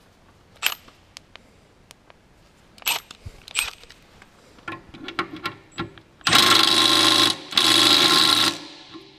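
Cordless power tool motor running in two bursts of about a second each, with a short break between. A few sharp clicks and knocks come before it.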